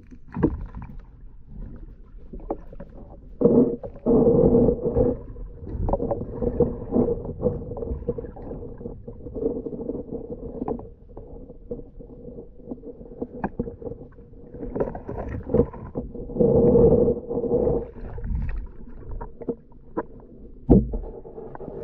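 Muffled underwater sound picked up by a submerged camera: water churning in irregular surges, louder twice, with scattered knocks and taps on the camera housing as a snorkelling diver swims close by.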